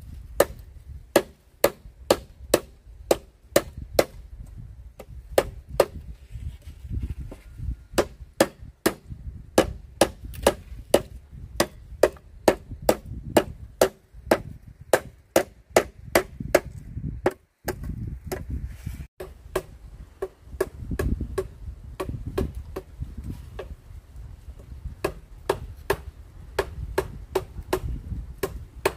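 Steady chopping blows on wood, about two a second, with short pauses around the middle.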